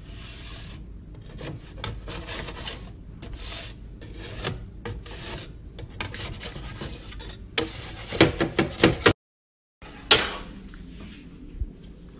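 A spatula scraping and lifting baked cookies off a metal baking sheet in repeated rasping strokes, with a few louder knocks against the tray near the end. After a short break there is one sharp knock, then quieter rustling.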